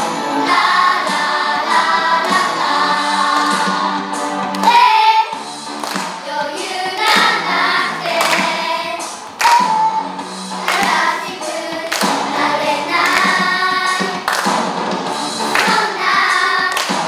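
A group of children singing a song together over instrumental accompaniment.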